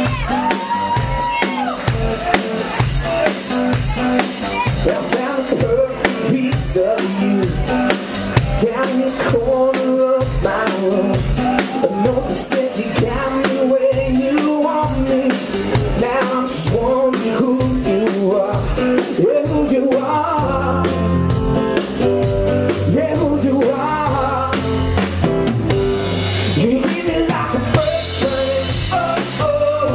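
Live band playing a song, with a male lead vocal over a steady drum beat. About two-thirds of the way through, a fuller, sustained bass comes in under the beat.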